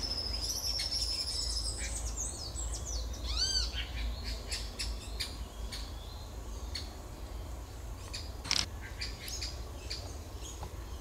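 Tropical birds calling: a high drawn-out whistle at the start, a series of arched ringing notes about three and a half seconds in, then scattered sharp clicks and short calls.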